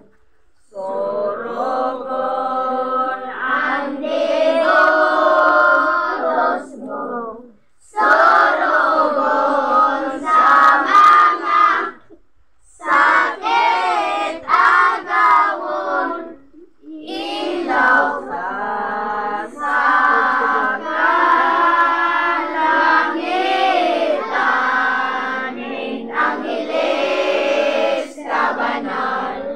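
A group of women and children singing a devotional hymn together in unison, in sung phrases broken by short pauses for breath.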